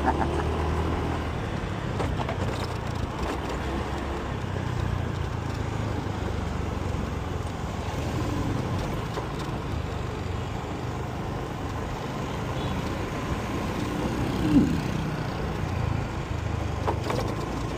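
Motorcycle riding through city traffic: a steady low engine and road rumble mixed with the noise of surrounding cars and trucks. A brief louder pitched sound stands out about three-quarters of the way through.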